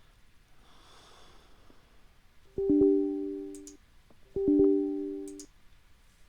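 A computer system alert chime sounds twice, about two seconds apart: each is a short electronic tone of two low notes together, starting sharply and fading away over about a second.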